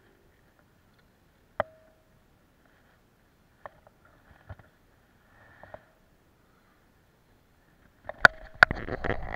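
Fly-fishing tackle being handled: a few sharp, separate clicks and knocks, some with a brief metallic ring. Near the end comes a loud stretch of rustling and rapid clicks as the rod and line are worked close to the water.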